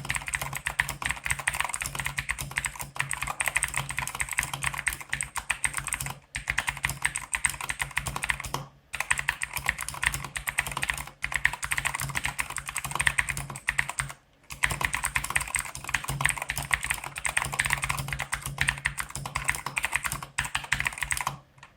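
Fast typing on an Ajazz AK33 mechanical keyboard with clicky blue Zorro switches: a dense run of key clicks, broken by short pauses about six, nine and fourteen seconds in, and stopping just before the end. A low steady hum sits underneath.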